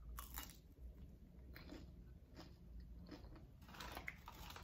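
A person biting into a crisp fried chicken taquito, then chewing it. Faint, soft crunches of the fried tortilla shell come a few times over the next few seconds.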